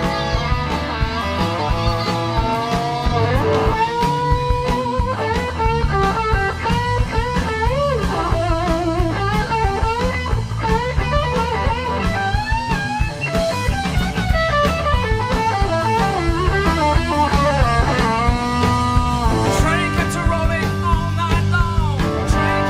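Rock band playing live: an electric guitar lead with string bends and vibrato over bass and drums.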